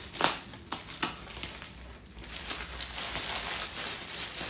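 Plastic mailer bag crinkling and rustling as it is handled and opened, with a few sharp crackles in the first second and a half, then continuous rustling from about halfway through.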